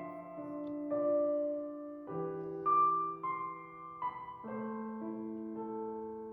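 Background music: soft piano playing slow sustained chords, a new chord about every one to two seconds.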